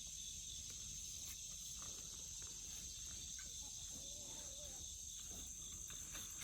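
Insects trilling steadily at a high pitch, with a faint low rumble underneath.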